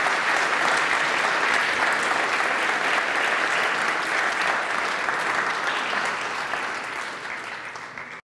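Audience applauding, a dense steady patter of clapping that thins out over the last couple of seconds and then cuts off abruptly.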